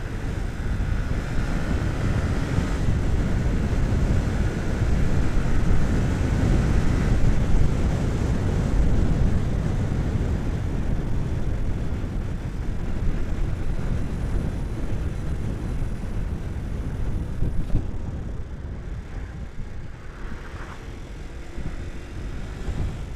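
A motorcycle riding at road speed, wind buffeting the on-board microphone over the engine's running. The wind rumble is heaviest about five to eight seconds in and eases a little near the end.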